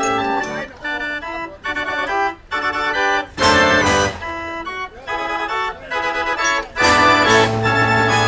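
A 37-key A. Ruth & Sohn fairground organ, built around 1900, plays a tune in short, detached chords. Its drum and cymbal crash loudly twice, about 3.5 and 7 seconds in, and after the second crash a bass note is held.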